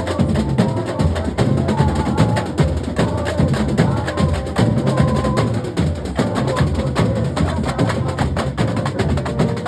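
A comparsa's carnival percussion section (batería) playing a dense, driving drum rhythm: deep drums underneath and many sharp, quick strikes on top, with no breaks.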